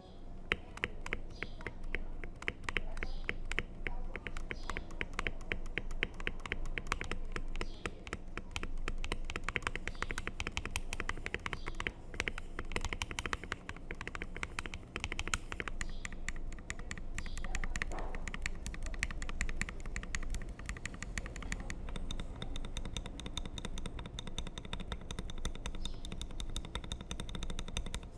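Fast continuous typing on an Akko ACR67 custom mechanical keyboard fitted with Akko Black linear switches, lubed switches and stabilizers: a dense stream of key clacks.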